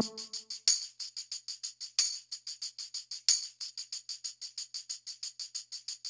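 Background music drops out to a lone tambourine playing a steady quick rhythm of about six strokes a second, with a few louder accented hits.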